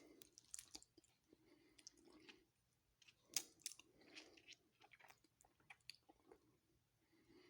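Faint chewing of cherry Twizzlers licorice candy: soft, wet mouth sounds with scattered small clicks, one sharper click a little before the middle.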